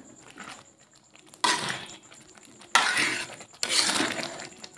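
Metal spoon stirring and scraping a thick spice paste around an aluminium wok, in a few separate strokes with sudden starts, the first about one and a half seconds in.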